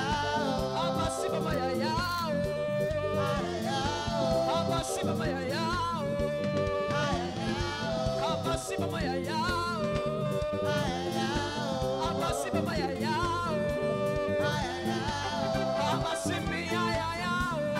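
A woman singing a Nigerian gospel praise song into a microphone over a steady beat of drums and bass.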